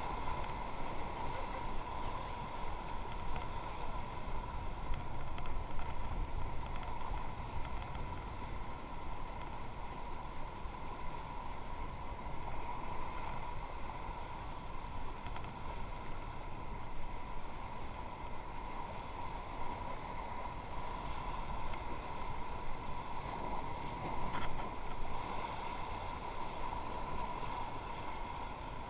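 Rushing river water around a raft on rapids: a steady, unbroken rush, with wind rumbling on the microphone.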